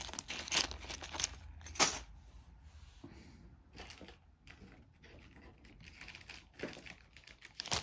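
Clear plastic bag crinkling and crackling as it is handled, with a sharp crackle about two seconds in, then fainter rustles and clicks, and more crinkling near the end.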